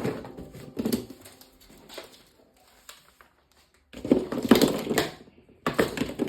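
Hard plastic toy parts clicking and clattering as they are handled, with a short near-silent pause a little past the middle and louder clatter near the end.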